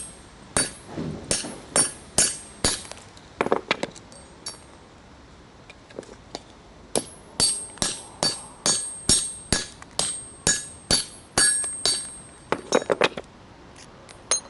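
Hammer blows on metal, knocking apart the outer race of a car water pump's ball bearing. About eight sharp, ringing strikes, a pause of a couple of seconds, then a steadier run of about fifteen more at roughly two a second.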